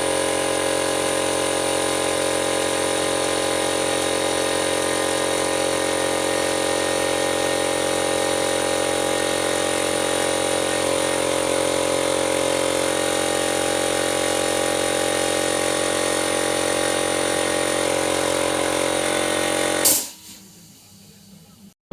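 2 hp Forte air compressor running steadily, back to normal after an oil change and cleaning. It cuts off suddenly near the end with a short sharp burst.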